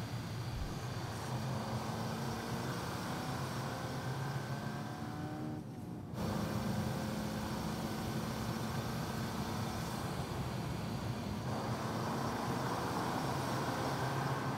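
Seat Leon ST estate car driving, its engine pulling with the pitch climbing as it accelerates, over tyre and road noise. About six seconds in the sound briefly drops away, then returns as a steadier engine note.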